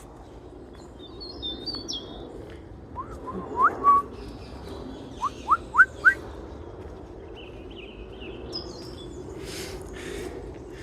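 Woodland birds chirping, high and faint, together with short upward-sliding whistles. The loudest are four quick rising whistles about five to six seconds in.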